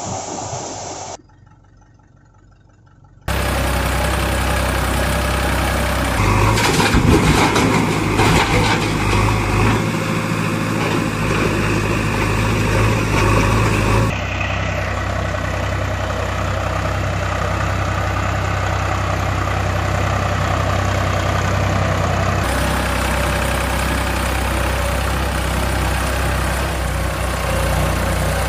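Soil pouring into a plastic toy dump truck for about the first second. After a short lull, a heavy vehicle engine sound starts about three seconds in and runs at a steady idle, louder and rougher for a few seconds early on, then settling. A toy truck cannot make such a sound, so it is an engine sound laid over the picture.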